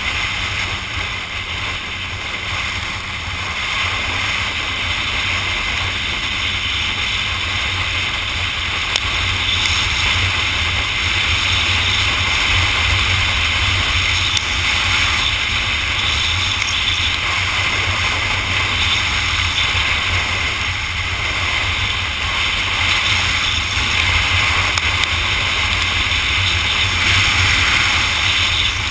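Motorcycle riding at road speed, heard from a camera mounted on the bike: steady wind rush over the microphone with engine and tyre noise underneath.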